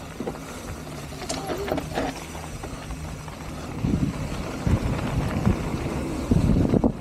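Canyon Torque mountain bike descending a dirt trail: tyres on dirt and the bike rattling, louder from about four seconds in and louder again near the end.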